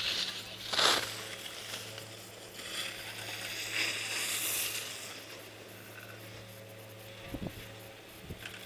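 Skis hissing and scraping over chopped-up snow in a few spurts, the loudest a short scrape about a second in, with a few low thumps near the end.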